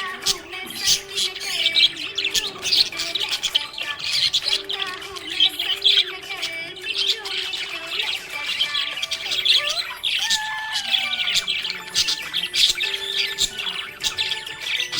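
A group of budgerigars chirping and squawking continuously, many quick overlapping calls, with some held steady tones underneath.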